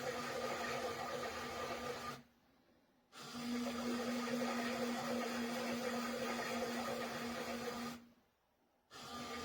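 Toy washing machine's electronic sound effect of a washing machine running: a steady mechanical whirring hum with a held tone. It stops twice for about a second, about two seconds in and again near the end.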